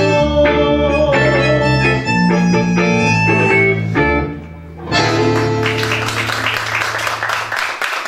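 Tango ensemble of bandoneón, guitar and bass playing the closing bars of a tango, ending on a final chord about four seconds in. Audience applause breaks out about a second later, with a low bass note still sounding under it for a while.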